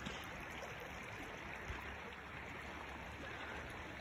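Shallow mountain stream flowing steadily over gravel, an even rush of running water.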